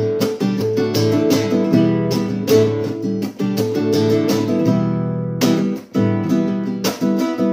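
Alhambra nylon-string classical guitar strummed in a rhythmic chord pattern, as an instrumental interlude in a song. The chords ring on briefly about five seconds in before a loud strum picks the rhythm back up.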